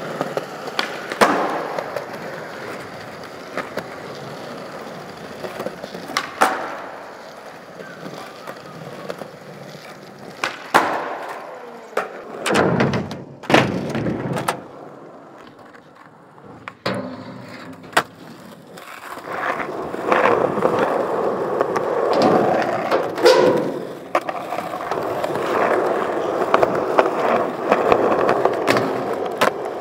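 Skateboard wheels rolling on concrete and rough asphalt, with several sharp clacks of boards being popped and landed. The rolling is loudest and most continuous over the last third.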